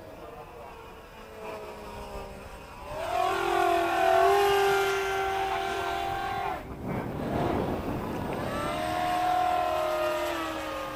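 Radio-controlled Rafale model plane's motor whining as the plane flies past: the whine swells about three seconds in, sweeps down in pitch near the middle as it passes, then comes back for a second pass.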